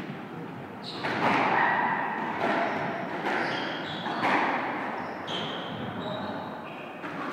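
Sports shoes squeaking on a wooden squash court floor, several short high squeaks, with a few sharp thuds of a squash ball bouncing, ringing in the hard-walled court.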